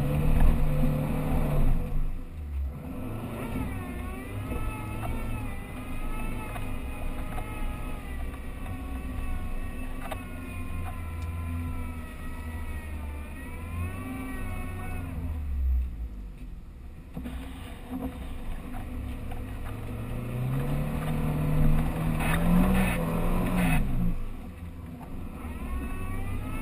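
Off-road 4x4 engine running under load, its pitch rising and falling as the throttle is worked, with harder revving near the start and again for a few seconds late on before easing off.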